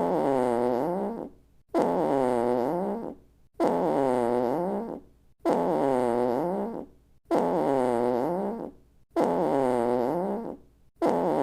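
A comic fart sound effect played over and over, one about every two seconds. Each is a buzzy, pitched blurt whose pitch dips and then rises again before it cuts off.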